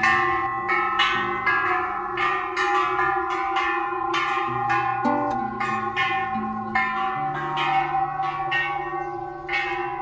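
Background music: a quick run of struck notes that ring on, over a steady held tone.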